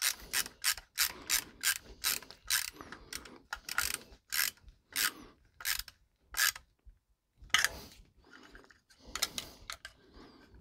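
Ratcheting screwdriver clicking as it tightens the cable clamp screw of a metal electrical box, about three clicks a second at first, then fewer and further apart until they stop about two-thirds of the way through. Fainter handling noise follows.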